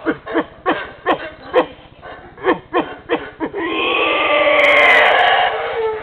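Yucatán black howler monkeys calling: a run of short, sharply falling barks, then about three and a half seconds in a long, loud chorus of howling. The howling sounds more like a pig's squeal than a howl.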